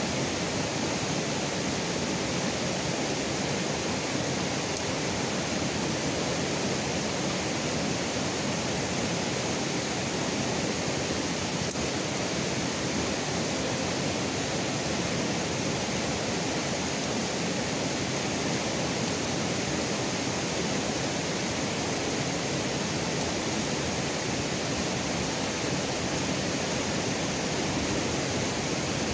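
Steady rushing of river water flowing over rocks, an even noise that never lets up.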